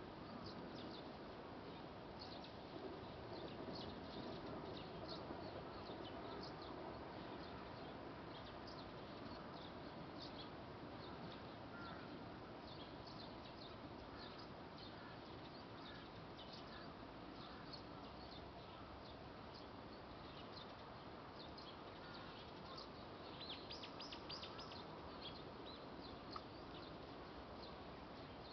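Faint, scattered short high chirps from wild birds, with a quick rattling trill near the end, over a steady low background noise.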